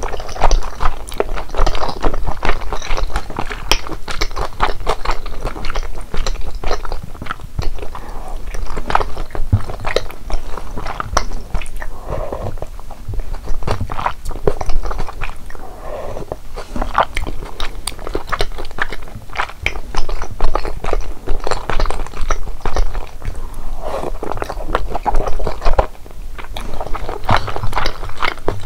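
Close-miked eating sounds: a person chewing and biting mouthfuls of malatang, with many short clicks throughout.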